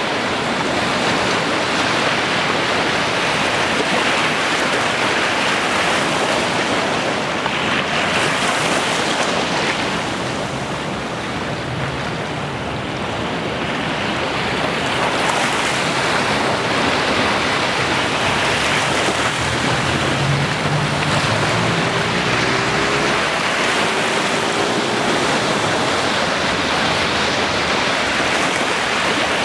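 Ocean surf washing in a steady rush, easing off briefly about a third of the way through before building again.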